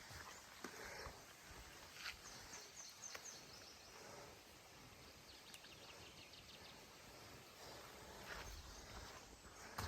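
Near silence: faint outdoor ambience with a few soft knocks and two brief high-pitched trills, the first about two seconds in and the second about four to five seconds in.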